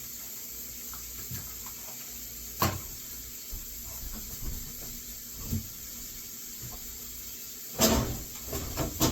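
Bacon sizzling steadily in a frying pan, a continuous hiss with faint crackles. A knock about two and a half seconds in and a few louder clatters near the end.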